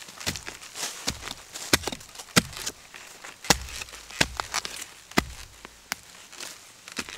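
A small hand hoe chopping into dry soil to dig out bamboo shoots. About nine sharp strikes come at uneven intervals, roughly one a second.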